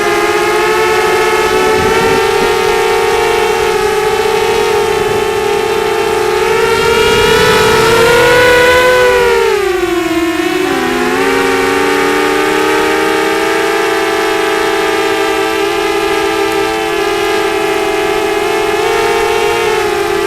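FPV quadcopter's electric motors and propellers whining steadily, several close pitches beating together. The pitch rises and the sound swells about a third of the way in, dips sharply around halfway as the throttle is cut, then holds steady again.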